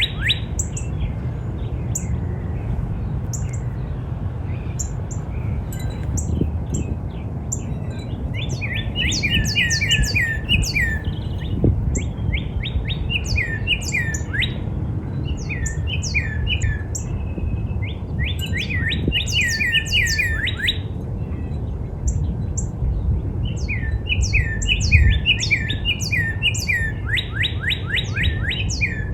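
Northern cardinal singing several phrases of rapid, down-slurred whistled notes, a few seconds apart. Short higher notes are scattered among them, over a steady low rumble.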